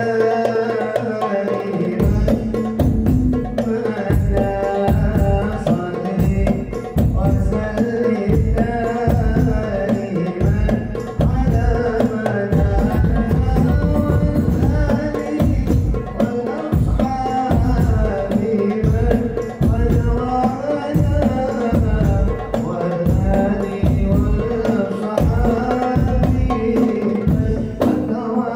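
Hadrah percussion ensemble of rebana frame drums and a bass drum coming in about two seconds in and playing a fast, steady rhythm under sung sholawat.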